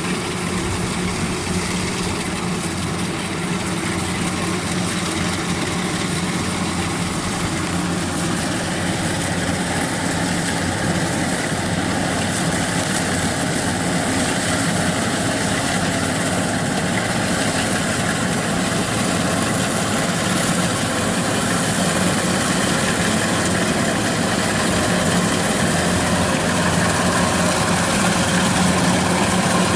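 Kubota DC-93 combine harvester's diesel engine and threshing machinery running steadily while cutting rice, a continuous drone that grows a little louder towards the end.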